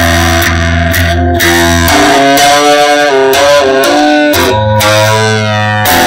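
Electric guitar music: a melodic lead line with notes bending in pitch, over low sustained notes that drop out for about two seconds in the middle.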